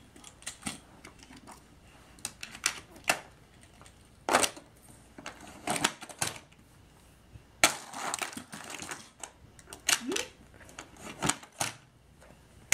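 Irregular sharp plastic clicks and clacks, some in quick clusters: toy die-cast monster trucks being loaded into and fired from the launcher of a Hot Wheels Monster Trucks Epic Loop Challenge playset, clattering on its plastic loop track.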